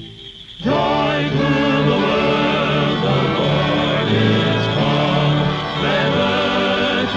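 Music: after a brief lull, choir singing with accompaniment starts just before a second in and carries on.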